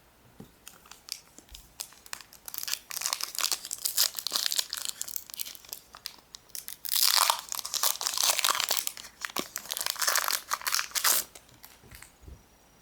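Foil wrapper of a Pokémon trading card booster pack crinkling and being torn open by hand, in two spells of dense crackling about two and a half and seven seconds in, with light handling clicks around them.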